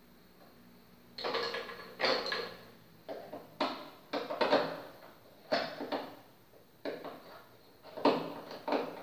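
A string of about nine short, irregular scraping and rattling noises from hands working against the wall panel at the light switch.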